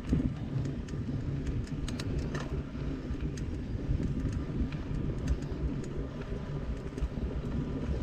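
Mountain bike rolling over a rough trail: a steady low rumble of tyres and wind on the camera microphone, with scattered sharp clicks and rattles from the bike.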